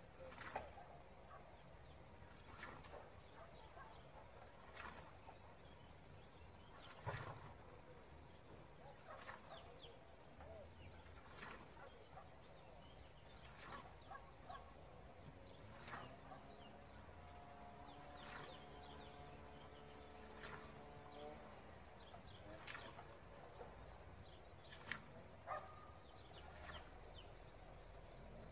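Faint, regular swishes of an old East European scythe cutting alfalfa, about one stroke every two seconds. A steady humming tone comes in for a few seconds in the middle.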